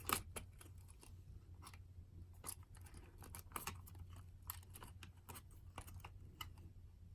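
Faint, irregular clicks and ticks of small plastic parts being handled and twisted together, over a low steady hum.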